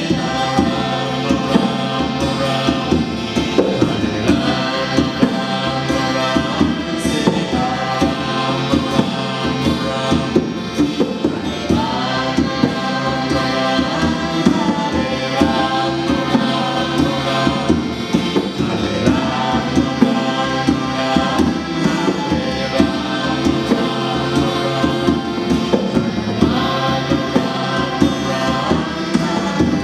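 Live kirtan music: a devotional mantra chant sung with a woman's voice leading, over strummed acoustic guitars and a sustained harmonium drone.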